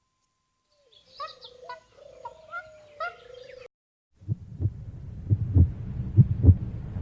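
A few seconds of short chirping calls, then a heartbeat sound effect: low double thumps, lub-dub, about once a second.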